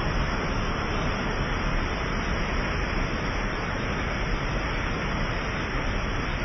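Water released through a dam's spillway, churning down the concrete channel and over its drop in a steady, unbroken rush.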